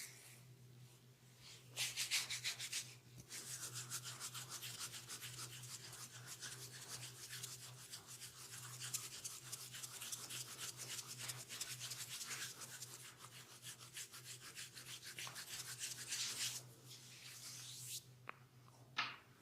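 Hands rubbing and scratching hair and scalp in a head massage: fast, rhythmic, scratchy strokes that start about two seconds in and stop near the end.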